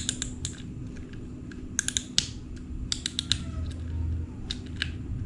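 Irregular groups of sharp little clicks from a Shimano Sienna 1000 FE spinning reel as its front drag knob is turned and unscrewed by hand.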